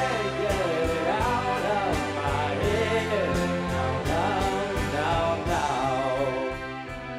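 Background song: a singing voice over instrumental accompaniment with a steady beat.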